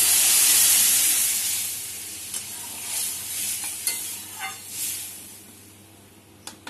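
Boiled red lentil dal poured into a hot pan of fried spice masala, hitting it with a loud sizzle that fades over about two seconds. Then a spatula stirring and scraping through the dal in the metal pan, with a few sharp clicks against the pan, the last near the end.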